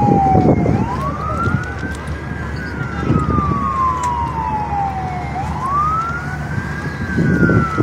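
Emergency-vehicle siren wailing in slow cycles, each a quick rise in pitch followed by a long, slow fall, twice, over a steady low background rumble.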